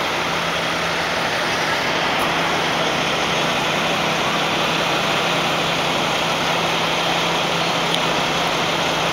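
Big truck engine idling steadily, a constant low hum under an even wash of city street noise.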